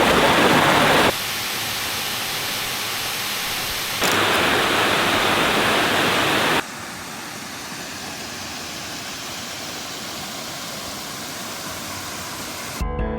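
Rushing water of waterfalls and a creek, a steady hiss that jumps abruptly between louder and softer three times. Music comes in near the end.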